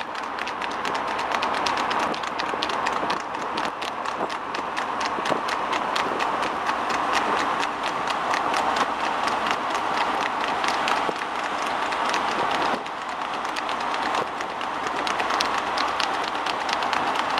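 Rapid, continuous hoofbeats of two harness horses pulling sulkies at racing speed on an asphalt road, over a steady rushing noise from the vehicles driving alongside.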